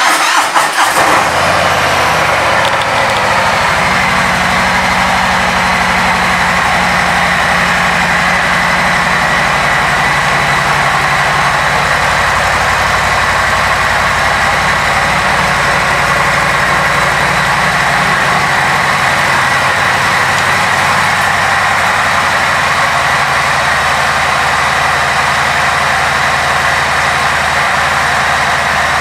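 Harley-Davidson Street Bob 114's Milwaukee-Eight 114 V-twin engine starting, uneven for about a second as it catches, then idling steadily.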